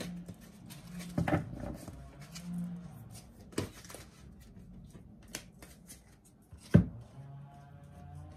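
A deck of tarot cards shuffled by hand: repeated papery riffles and clicks of the cards, with one sharp tap about seven seconds in.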